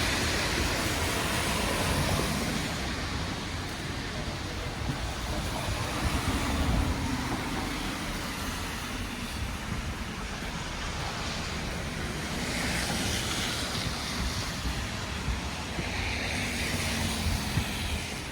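City street ambience in a snowstorm: a steady rush of wind and traffic noise with low rumbling, swelling slightly twice near the end.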